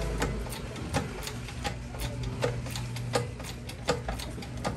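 Light metallic clicking at a steady pace of about four a second from a barrel button-rifling rig while a hand works the press, over a low mechanical hum that fades in the first half second.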